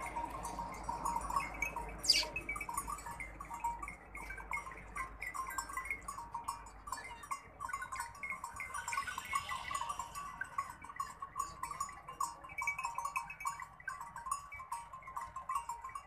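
Goats bleating, many short calls in close succession, with a single sharp click about two seconds in.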